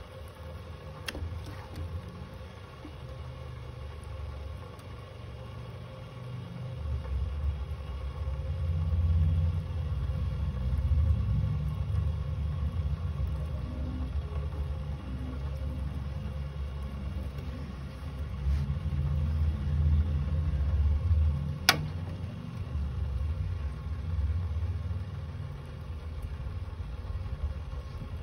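Low rumble that swells and fades irregularly, with a couple of sharp clicks, one about a second in and a louder one near the end.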